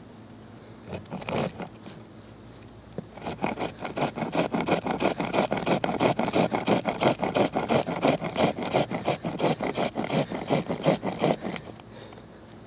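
Pocket chainsaw, a length of chainsaw chain pulled back and forth by hand, cutting into a small log: a brief rasp about a second in, then fast, steady rasping strokes of the chain's teeth through the wood that stop shortly before the end.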